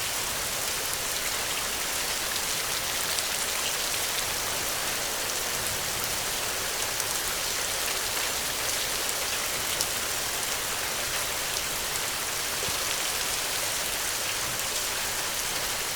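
Steady rain falling on a thatched roof: an even hiss of rainfall with faint scattered drop ticks throughout.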